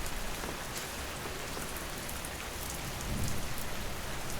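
Steady rain falling, with scattered drop ticks. A low rumble swells about three seconds in.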